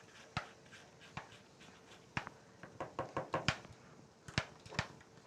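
A utensil knocking and scraping against a mixing bowl while stiff chocolate chip cookie dough is stirred: irregular clicks, bunched together about three seconds in.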